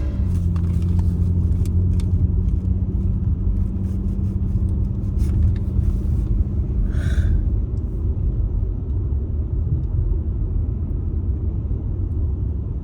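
Car running, heard from inside the cabin: a steady low rumble with a constant hum. A short hiss comes about seven seconds in.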